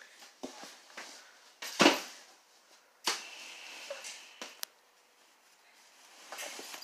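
A fabric duffel bag being handled on a carpeted floor: a thump about two seconds in, then rustling with two sharp clicks a little after the middle, and more rustling near the end.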